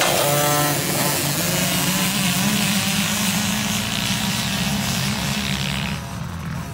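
Small youth dirt bike's engine revving up sharply as the rider pulls away, then running hard and steady at high revs. Near the end it drops off as the bike moves away.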